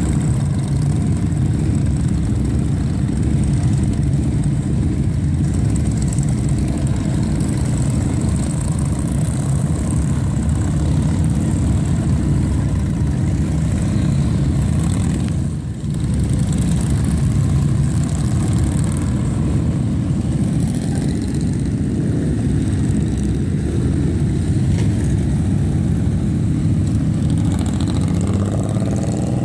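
A stream of motorcycles riding out one after another: a dense, steady low rumble of many engines running together, with a brief dip about halfway through.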